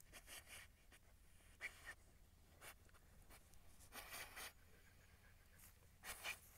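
A dog digging and sniffing at a hole in loose soil: faint, irregular scratching and snuffling in short bursts, the loudest about four seconds in and again near the end.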